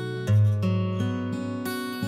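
Background music on acoustic guitar, with plucked notes ringing over each other and a strong low bass note coming in about a third of a second in.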